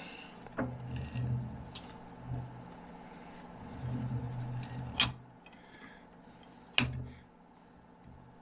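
Metal knocks and clanks at a lathe while a long axle shaft is adjusted in the chuck to dial it in true: four sharp, ringing knocks, one near the start, one just after, one about five seconds in and one near seven seconds, with short low rumbles between them.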